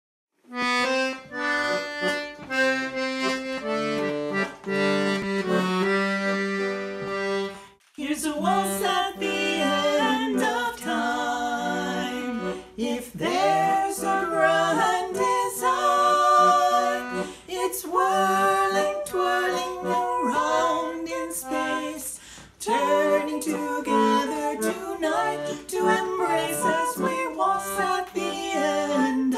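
An accordion plays a waltz introduction. After a short break about eight seconds in, two women begin singing a duet to the accordion's accompaniment.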